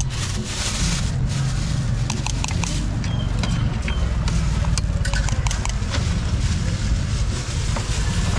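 Street food stall ambience: a steady low engine-like rumble, with light scattered clinks of spoons against cups and containers.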